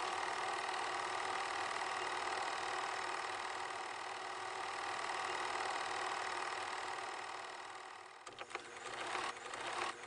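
Cine film projector running: a steady, fast mechanical clatter with hiss. Near the end it dips and breaks into a few sharp clicks.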